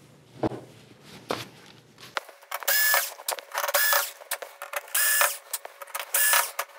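Cordless drill/driver backing out the TV main board's mounting screws: four short whirring runs of the motor, each about half a second, starting about two and a half seconds in. Light handling clicks come before the first run.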